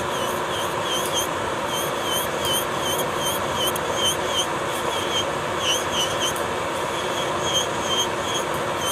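Electric nail drill (e-file) grinding down thick gel polish on a fingernail with a white bit: a steady motor hum with short squeaks, two to three a second, as the spinning bit rubs across the nail.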